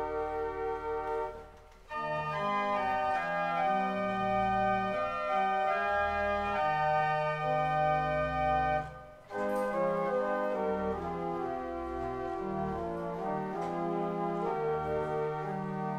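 Pipe organ playing a hymn in sustained chords. It breaks off briefly twice between phrases, about two seconds in and about nine seconds in.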